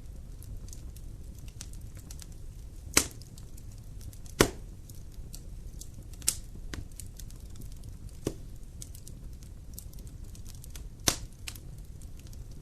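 Wood fire burning in a fireplace: a low steady rumble of flames under frequent small crackles, with five sharp, louder pops spread through it.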